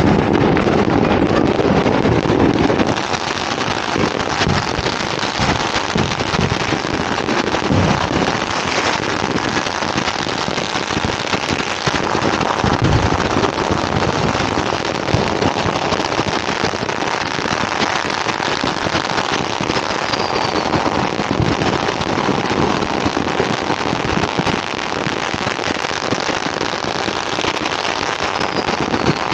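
Dense, continuous crackle of many firecrackers going off at once, with scattered sharper pops. Wind buffets the microphone for the first few seconds.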